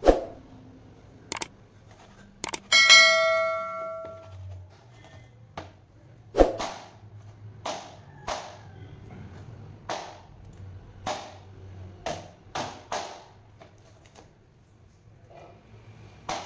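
Large knife chopping a red snapper into steaks on a cutting board: a dozen or so sharp chops and knocks, unevenly spaced. About three seconds in, one strike gives a metallic ring that fades over a second or so.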